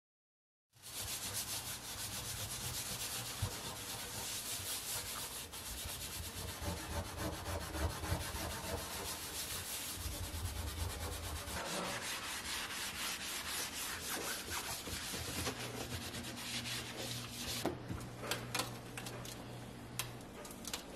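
Green Scotch-Brite scouring pad scrubbing the enamel inside of an oven, a dense, steady rubbing scour that starts about a second in. Near the end it breaks into separate, sharper wiping strokes.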